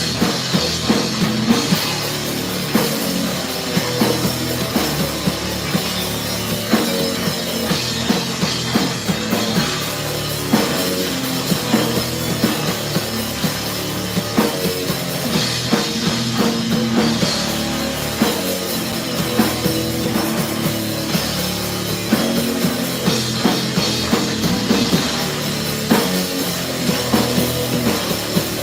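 Rock band playing live, with a drum kit keeping a steady beat under the full band.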